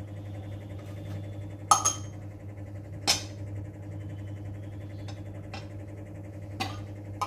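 Steel oil bottle and stainless steel kadai handled as cooking oil is poured into the empty pan: four sharp metallic clinks, the loudest about two seconds in, over a steady low hum.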